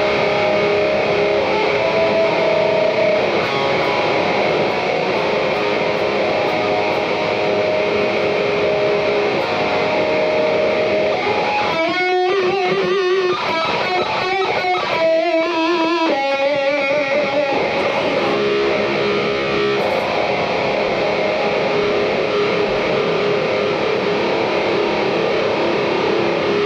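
Electric guitar played through a chain of 51 EarthQuaker Devices Plumes overdrive pedals at once: a heavily distorted tone buried in a thick hiss, the stacked pedals' noise floor. Held notes, with a few seconds of wavering, bent notes about halfway through.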